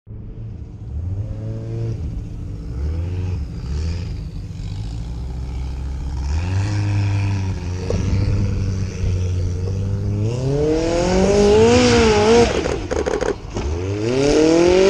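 Formula off-road racing car engine running at a steady low idle with short blips of throttle, then revving hard in rising sweeps about ten seconds in. The revving breaks off briefly with a few sharp knocks and rattles, then climbs again near the end, loudest at the peaks.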